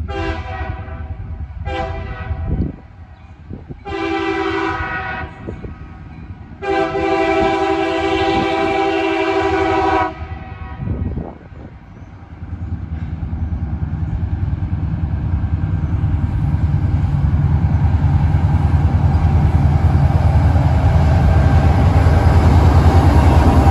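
A freight train's diesel locomotive horn sounds four blasts, the last the longest at about three seconds, as for a road crossing. Then the locomotives' diesel engines grow steadily louder as the train approaches and rolls past.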